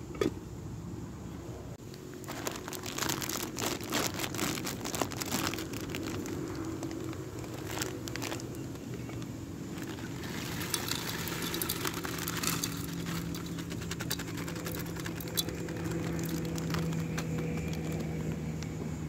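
A metal lid clanks onto a small cooking pot right at the start. Then come rustling and crinkling of a plastic food packet as it is handled, torn open and emptied into the pot, with a faint steady low hum underneath.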